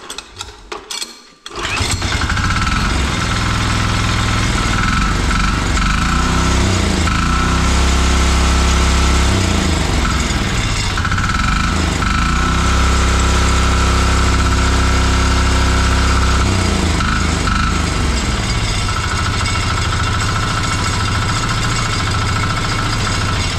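Bolat Atom 7 hp tiller's 178F single-cylinder diesel engine catches after a few clicks about a second and a half in, then runs steadily, its speed rising and falling a few times as it warms up. The engine has just been repaired after wrongly set valve clearances let a valve keeper come off and drop inside, and it now runs without trouble.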